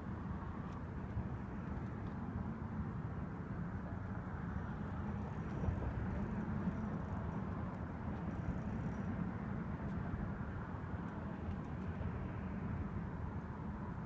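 Steady road and wind noise inside a car driving at a constant speed: an even low rumble with no change throughout.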